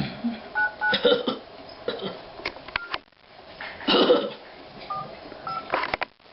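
Touch-tone phone keypad beeps as a number is dialed: short two-tone beeps at irregular spacing, with light taps between them. A brief louder vocal sound comes about four seconds in.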